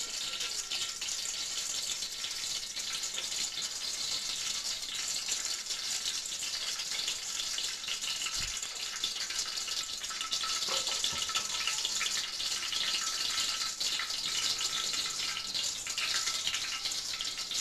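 Cooking oil heating in an aluminium kadai on a gas stove: a steady hiss with fine, continuous crackling as the oil starts to bubble, getting a little louder after about ten seconds.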